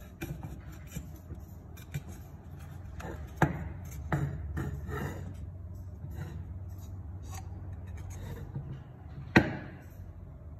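Aluminium door-frame sections knocking and clicking as they are handled and swung on their hinges, with two sharp metallic knocks, one about three and a half seconds in and one near the end that rings briefly. A steady low hum runs underneath.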